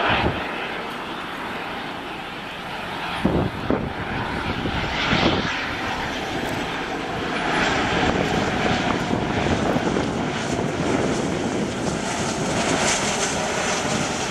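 Rolls-Royce BR710 turbofans of a Bombardier Global Express business jet on landing approach: steady jet noise that grows louder about halfway through as the jet comes closer. A few brief thumps sound a few seconds in.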